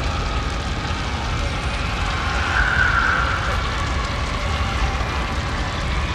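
Synthetic horror ambience: a steady, deep rumbling drone with a high, drawn-out wail swelling in over it about two and a half seconds in.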